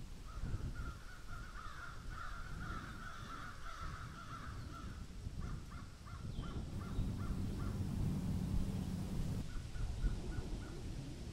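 Crows cawing: a stretch of overlapping harsh calls, then two runs of short, quick repeated caws, over a low rumble that swells in the second half.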